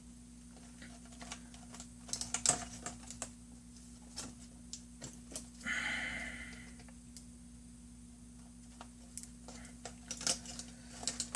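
Light, irregular plastic clicks and taps from laptop case parts, brackets and cables being handled and fitted during reassembly, with a short scraping rub about six seconds in and a quicker run of clicks near the end.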